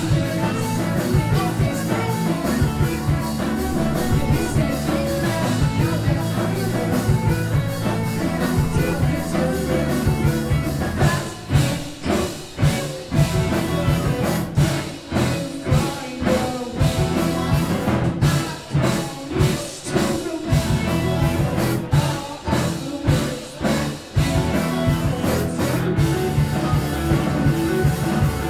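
Rock band playing live and loud, electric guitar over a drum kit. About eleven seconds in the playing breaks into a run of short, clipped hits with brief gaps between them. Full sustained playing returns about twenty-four seconds in.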